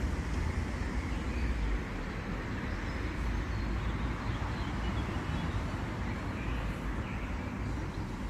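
Outdoor ambience: a steady low rumble and even background noise, with a few faint, short bird chirps now and then.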